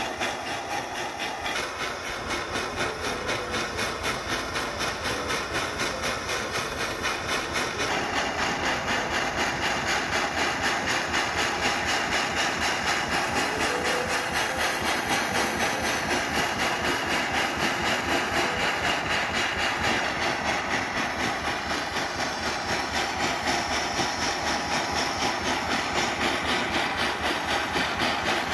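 Jeweller's torch flame hissing steadily with a fast, even pulsing as it melts an old ring down in a clay crucible; the hiss grows a little louder about eight seconds in.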